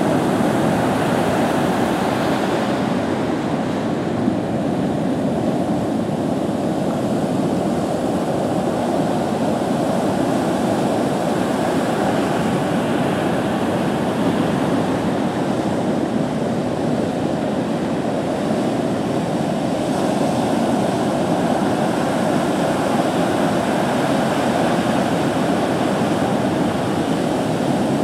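Heavy surf from a hurricane swell breaking, a steady, even rush of noise without pauses.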